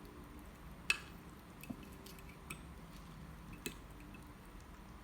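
Four light clicks of a utensil against a plate while oobleck slime is mixed, the sharpest about a second in.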